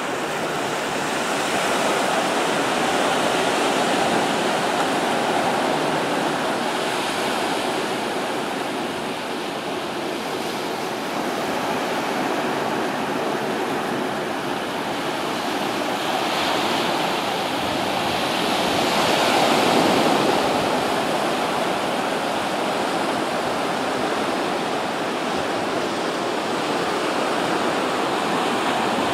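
Small ocean waves breaking and washing up over sand and rocks: a steady rush of surf that swells and eases again several times, loudest about two-thirds of the way through.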